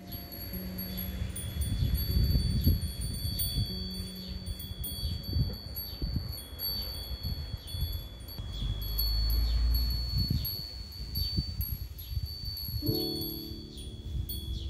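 Small metal wind chimes ringing, struck again and again with high, overlapping tinkling tones, over a low rumbling noise. Music comes in near the end.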